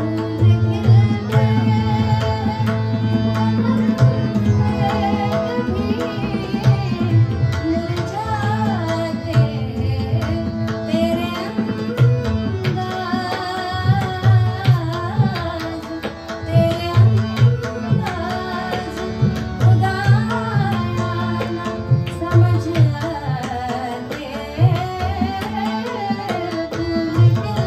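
Ghazal music: tabla playing a steady rhythm with deep bass strokes, under sustained keyboard notes and a winding, ornamented melody.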